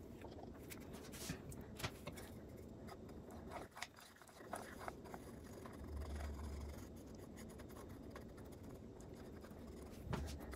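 Faint scraping and light clicks of a wooden stick spreading freshly poured epoxy across an end-grain cutting board, with a short low bump about six seconds in.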